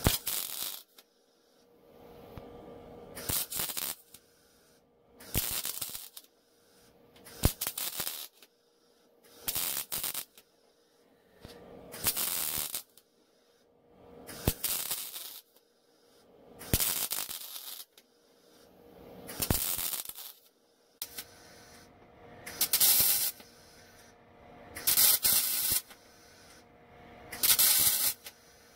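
MIG welder laying spot welds on sheet metal: a short crackling burst of the arc about every two and a half seconds, about a dozen in all, with quiet gaps between.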